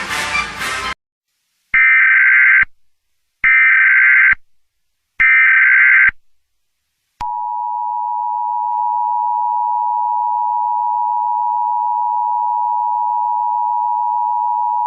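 Music cuts off about a second in, followed by three short bursts of Emergency Alert System SAME header data tones, evenly spaced. About seven seconds in, the steady two-tone EAS attention signal starts and holds. Together they mark the start of an emergency alert broadcast.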